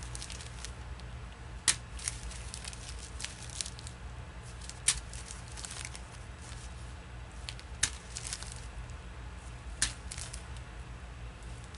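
Small plastic zip-lock bags of diamond-painting drills handled and shuffled through in the hands: thin plastic crinkling, with four sharper crackles a couple of seconds apart.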